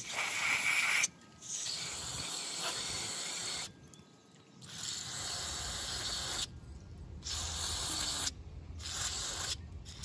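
Aerosol can of CRC mass airflow sensor cleaner spraying through a thin straw onto the sensing elements of a removed mass airflow sensor. The spray comes as a hiss in about six bursts of one to two seconds each, with short breaks between them.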